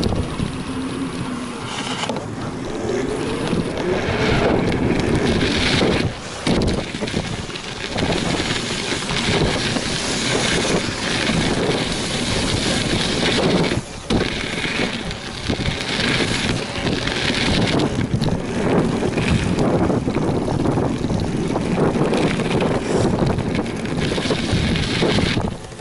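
Steady rush of wind buffeting an action camera's microphone as it moves fast over a dirt BMX track, mixed with the rolling rumble of the ride. The noise drops out briefly twice.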